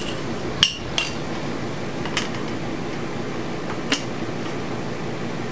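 Metal hand tools clinking against the engine block and its front cover: four sharp clinks spread over a few seconds, the first two loudest, over a steady background hum. A straight edge is being laid across the block to check the front cover's alignment.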